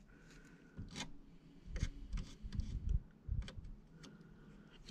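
Razor blade scraping excess DryDex spackle flat on a 3D-printed plastic rifle, around the trigger guard. It makes faint, short scrapes and taps at irregular intervals.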